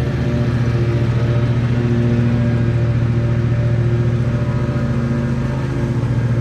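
Engine running steadily at a constant speed, with a deep, even hum throughout.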